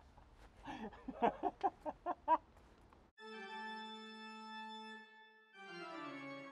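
A woman laughing in quick bursts, then, about three seconds in, music starts: a held chord that steps down to a lower chord near the end.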